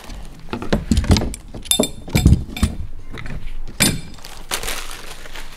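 Small metal hardware being handled on a plastic kayak deck: a run of knocks and thuds, with two sharp, ringing metallic clinks about two and four seconds in.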